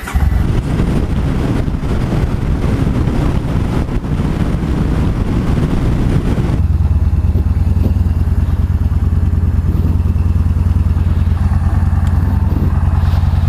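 Motorcycle engine running under a rush of wind and road noise; about halfway through, the rush drops away and the engine carries on as a steady low drone.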